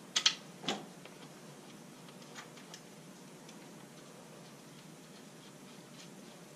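Three sharp clicks and knocks in the first second as a bare engine block is worked into place on a tractor, then a few faint scattered ticks over a low, quiet background.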